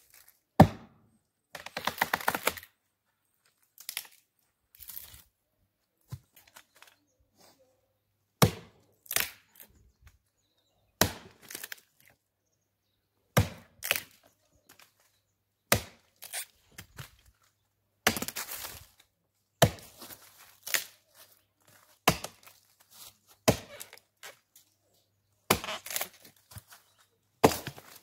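Axe chopping into a large felled log: sharp, separate blows every one to two seconds or so, irregular in pace, some followed by a short crackle of splintering wood.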